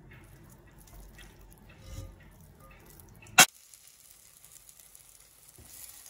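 Wet cooked noodles are handled in a metal colander, with small wet clicks and water dripping. About three and a half seconds in there is one sharp, loud click. After it comes a faint sizzle from a pan of eggs cooking in onion-cabbage masala, growing a little near the end.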